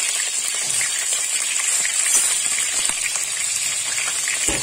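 Onion halves sizzling in hot oil in a pot: a steady crackling hiss. A short thump near the end.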